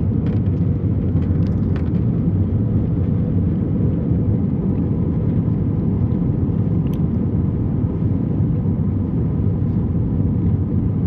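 Steady low rumble of an airliner heard from inside the passenger cabin: engine and airflow noise while the plane descends or rolls toward the gate.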